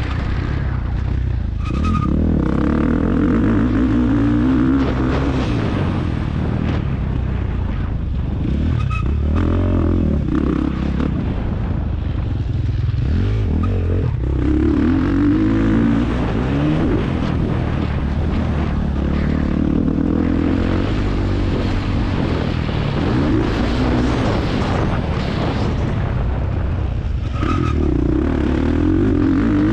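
Motocross bike engine heard from an onboard camera, revving up and dropping back several times as the rider races round the track and works the throttle through straights and corners.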